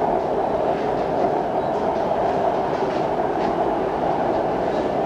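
Bangkok BTS Skytrain heard from inside the car while running between stations: a steady rumble of wheels on rail and traction motors, with a few faint ticks.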